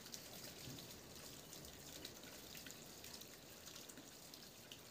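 Near silence: a faint steady hiss with a few soft scattered ticks.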